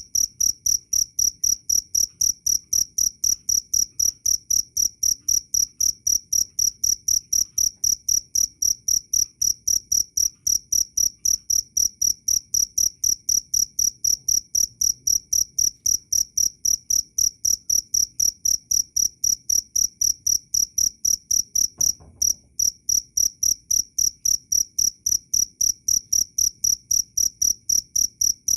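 A cricket chirping loudly in an even rhythm, about three high, pure-toned chirps a second. The chirping breaks off for a moment about 22 seconds in, with a faint low knock.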